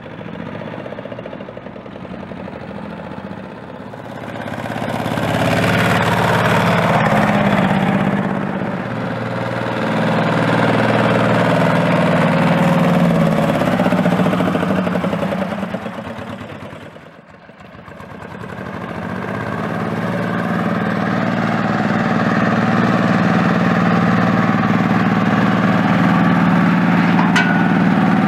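Small engine of a homemade miniature tractor running, getting louder as the tractor drives past pulling a small slurry tank. After a break about two-thirds through, the engine runs steadily at a constant speed.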